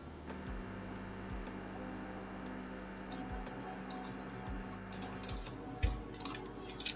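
Scattered computer keyboard and mouse clicks over a steady low hum, with a few sharper clicks about six seconds in.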